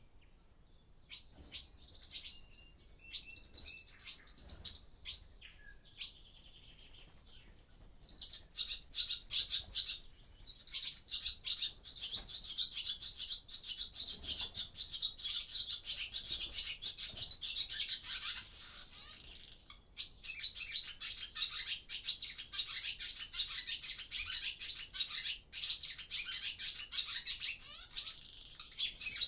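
Barn swallows twittering. A few scattered calls give way, about eight seconds in, to a dense, rapid chatter of high trills and squeaks that keeps going.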